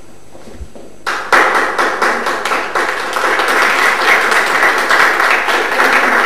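Audience applauding, starting suddenly about a second in and continuing as dense, even clapping.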